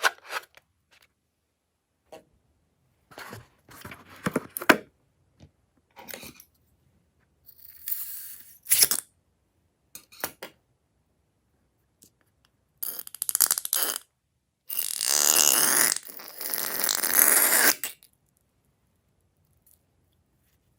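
Slime and balloon handling: a string of short squishes, scrapes and clicks, then a louder, longer noisy squelch lasting about three seconds near the end.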